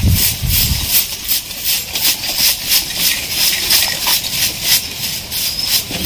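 Broom sweeping dry debris over rough ground in quick, even strokes, about three a second.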